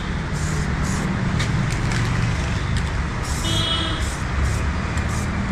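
Aerosol spray can of spray-on paint protection coating hissing in short bursts as it is sprayed onto motorcycle plastic panels, over a steady low vehicle rumble.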